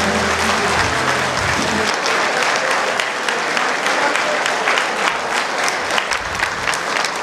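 Large audience clapping steadily, with music underneath that ends about two seconds in.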